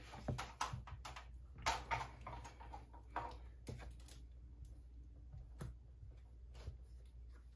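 Faint, irregular rubbing strokes and light taps of a screen-cleaning wipe being wiped across an 8th-generation iPad's glass screen, clearing dust before a glass screen protector goes on.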